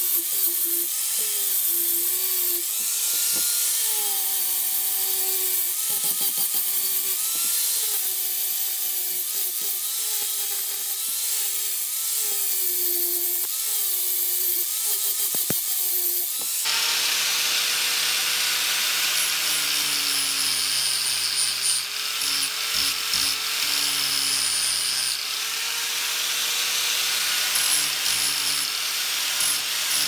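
Angle grinder with an abrasive disc grinding rust off a steel pocket-knife blade. A motor whine wavers and dips as the blade is pressed against the disc, over a dense hiss of abrasion. A little past halfway the sound changes abruptly to a steadier motor note.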